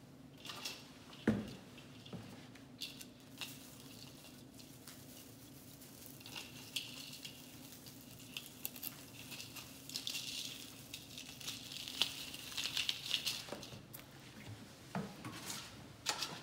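Rustling and crinkling of an artificial pine garland and its glittered decorations being handled, with irregular small clicks and one sharper click about a second in; the crinkling is denser in the second half.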